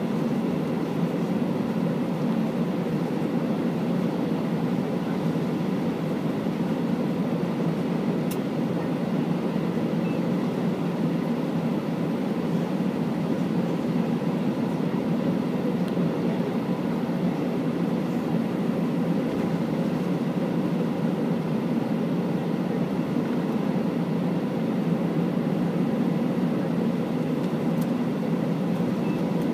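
Airbus A319 cabin noise while taxiing: a steady low rumble from the engines at idle and the rolling airframe, with a faint steady whine on top.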